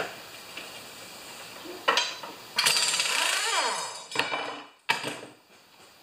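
Air impact wrench spinning off a lawn mower's blade bolt in a loud burst of about a second and a half, its pitch rising and falling, with metal clanks before and after as the blade comes loose.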